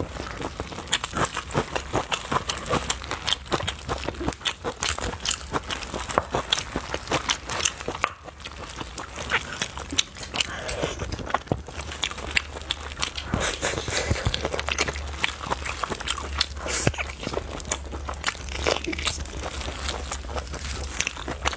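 Close-miked eating of sticky braised pork trotters: a dense, irregular run of wet chewing, biting and mouth smacks, with gelatinous skin and meat pulled apart by gloved hands.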